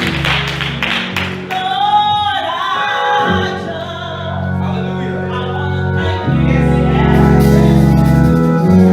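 Gospel praise-and-worship music: a singing voice over sustained instrumental accompaniment.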